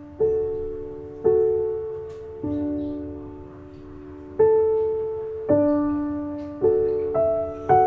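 Soft background piano music: slow, sustained notes and chords struck about once a second, each ringing and fading.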